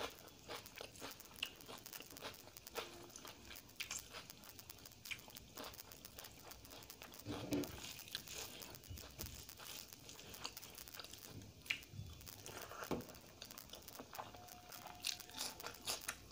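Close-miked hand-eating of rice and chicken curry: chewing, with fingers squishing and mixing the rice and curry on a steel plate, heard as many small wet clicks throughout.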